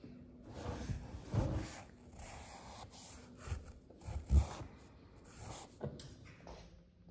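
A few soft, dull thumps and knocks at a painting table, the loudest about four seconds in, while a paintbrush works across paper.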